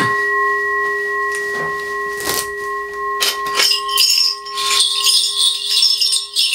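A Korean shaman's brass bell rattle (mudang bangul) is shaken in a fast, continuous jingle from about four seconds in. Under it a brass bowl keeps up a steady ring, and a few sharp clicks come just before the jingling starts.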